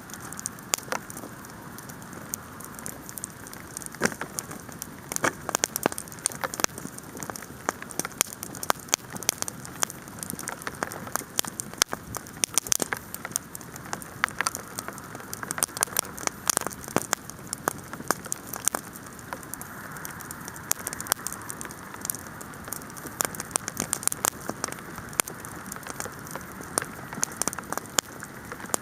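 Bonfire crackling with many sharp pops, over the steady hiss and patter of hail falling.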